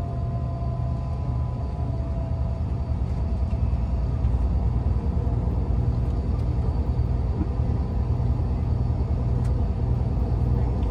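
Steady low rumble of a moving road vehicle heard from inside its cabin: engine and road noise.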